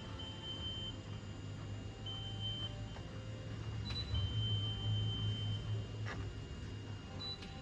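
Multimeter continuity beeper sounding in short beeps, with one longer beep about four seconds in, as the probes touch a connection while checking the amplifier for a bad contact. A low hum runs underneath, and there is a click about six seconds in.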